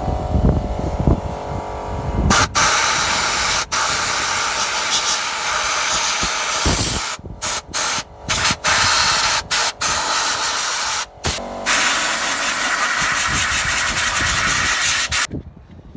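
Compressed-air blow gun hissing in long blasts, blowing dirt and oil out of engine sensor connectors; starts about two seconds in, breaks off briefly several times as the trigger is released, and cuts off suddenly near the end.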